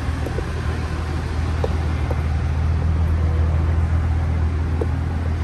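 Cadillac Blackwing sedan's engine idling with a steady low rumble, with a few faint ticks over it.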